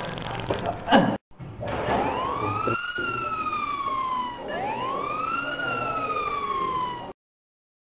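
Siren wailing in two slow sweeps, each rising and then falling away, then cutting off abruptly about seven seconds in.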